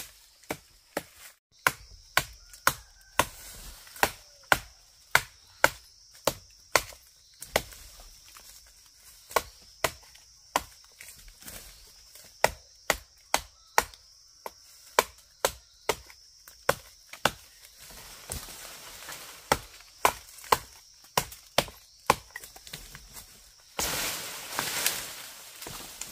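Steady chopping on wood, about one and a half sharp strokes a second, with a couple of seconds of scraping or rustling noise near the end.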